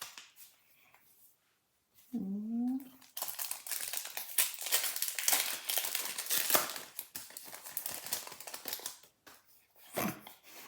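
Foil wrapper of a Pokémon trading card booster pack crinkling as it is handled, a dense crackle lasting about six seconds.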